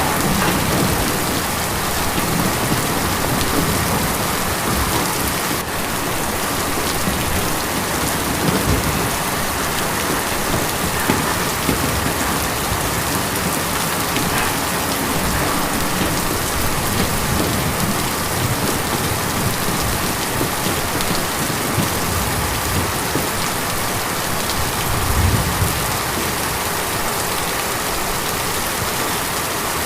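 Steady rain falling on a tin roof, an even patter with a few louder low thuds scattered through it.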